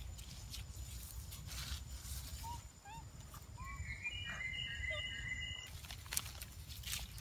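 Outdoor forest-floor ambience: dry leaf litter rustling and crackling under moving monkeys, with a few short faint chirps about halfway through and a brief high whistling call just after.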